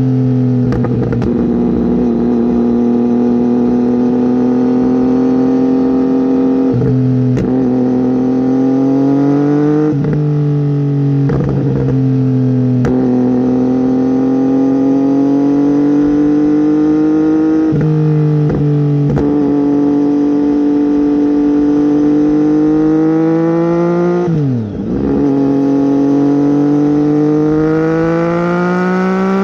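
Triumph Tiger 800 XC's three-cylinder engine running through a slip-on silencer and decat pipe under way. The note climbs and falls slowly and jumps in pitch several times, like gear changes, with a brief drop and dip in loudness near the end.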